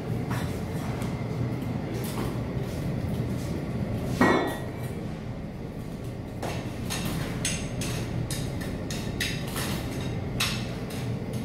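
Metal clinks and knocks over a steady low hum, with one louder ringing clang about four seconds in and a quicker run of clicks and taps in the second half.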